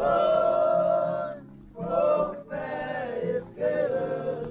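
A group of voices singing a Portuguese devotional hymn in long held phrases, with short breaks between them.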